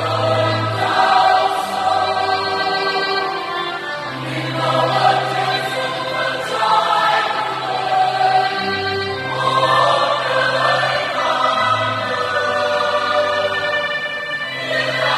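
Mixed church choir singing a Vietnamese Catholic wedding hymn, with continuous held notes.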